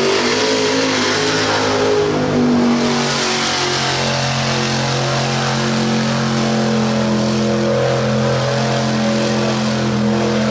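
Mega mud truck's diesel engine at wide-open throttle, held at high, steady revs as the truck plows through a deep mud hole.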